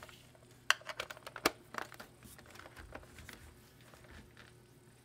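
Handling of a Vista 390 desk telephone, plastic clicks and knocks as the cords are plugged in and the handset is lifted: two sharp clicks about a second apart early on, then lighter tapping and rustling that dies away after about three and a half seconds.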